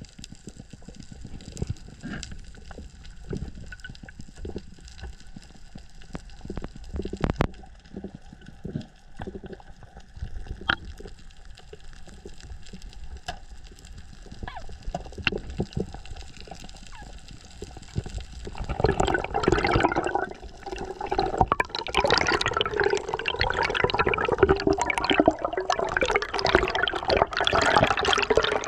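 Water heard through an underwater camera: faint scattered clicks and pops at first, then from about eighteen seconds in a much louder rushing, bubbling water sound.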